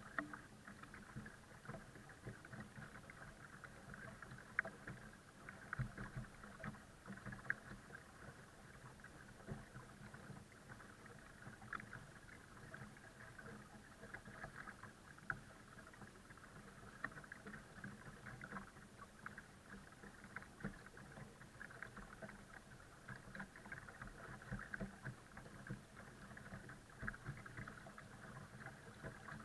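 Water lapping and gurgling along the hull of a folding kayak under slow tow, with many small irregular splashes.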